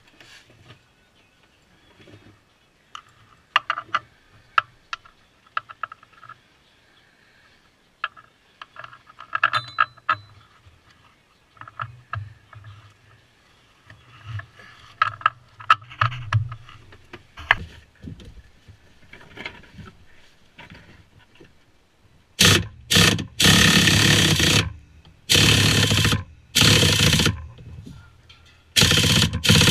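Metal tool clinks and scrapes of hand work on the van's sway bar bushing brackets. About two-thirds of the way in, an impact wrench starts running in repeated loud bursts of one to two seconds each.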